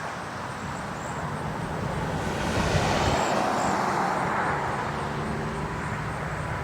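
A road vehicle passing, its engine and road noise swelling to a peak about halfway through and then easing off. Under it a faint steady tone comes from the Federal Signal STH-10 siren, still slowly winding down after its alert.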